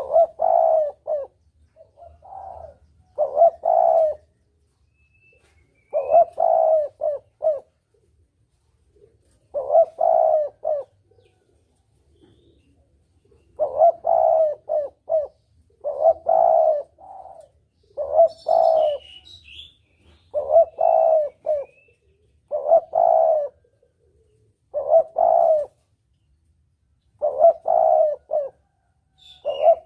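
Spotted dove (tekukur) cooing: short phrases of several low notes, repeated every two to three seconds. It is a recorded lure call of the kind played to draw doves in for hunting.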